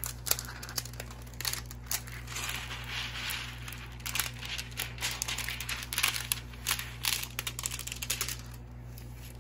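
Clear plastic protective film on a diamond painting canvas crinkling and rustling as hands handle and smooth it flat, with irregular crackles.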